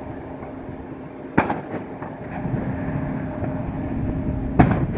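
Two distant aerial firework shells bursting, each a sharp bang with a short echo, about three seconds apart, the second the louder. Under them runs a steady low rumble with a constant hum.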